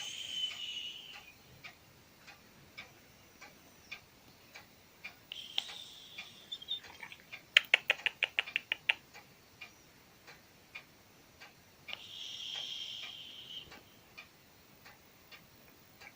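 Sleeping cat breathing with a high whistle on each breath: three whistling breaths about six seconds apart, each about a second and a half long. A clock ticks about once a second throughout, and a quick run of loud clicks comes about halfway through.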